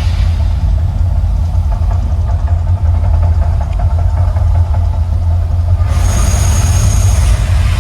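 Deep, steady rumble of the Mirage volcano show, with a loud rushing hiss carrying a thin high whistle that starts about six seconds in and stops about a second and a half later.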